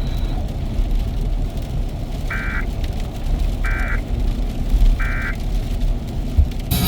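Emergency Alert System end-of-message signal: three short two-tone digital data bursts, each about a third of a second long and about 1.3 s apart, marking the close of the alert. A steady low hum runs underneath.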